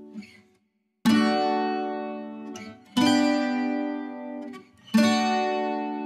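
Background music: a guitar-like plucked string instrument strikes a chord three times, about two seconds apart, each chord ringing and fading, after a brief pause near the start.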